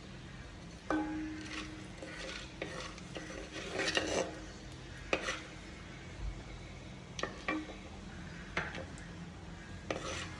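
A metal spoon stirring and scraping in a pan of hot oil as a fenugreek seasoning fries, with a faint sizzle. The spoon knocks on the pan every second or two, and the pan rings briefly after several of the knocks.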